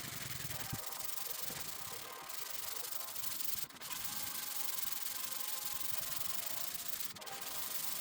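Sandpaper rubbing steadily over the painted lacquer of a car body panel, with a brief break about three and a half seconds in.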